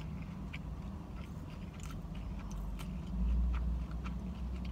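A person chewing a bite of a bacon, egg and cheese sandwich on a flaky croissant bun, with faint scattered crunchy clicks over a steady low hum. A low rumble swells briefly about three seconds in.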